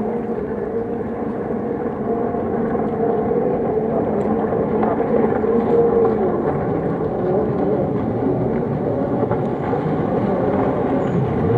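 Several racing jet skis' engines running hard as a pack, a high whine that rises and falls in pitch as they pass and turn, over a steady rush of water spray.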